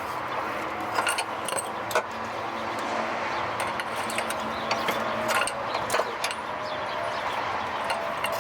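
Metal hand tools clinking and rattling against each other, irregular sharp clicks from a wrench being worked on tight, rusted exhaust bolts.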